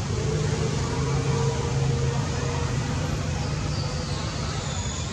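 Steady low outdoor rumble like road traffic, with faint thin high tones coming in near the end.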